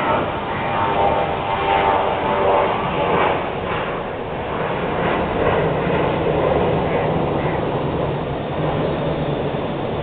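Busy city street traffic: a steady, loud mix of engine noise, with some pitched tones layered over it in the first few seconds.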